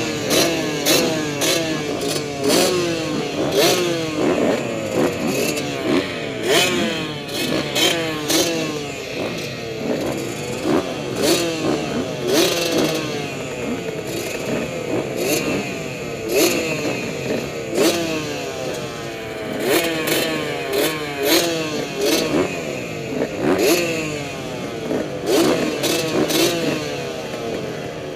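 Motocross bike engine heard on the rider, revving up and dropping back again and again as the throttle is opened and shut around the track, with frequent sharp knocks and rattles mixed in.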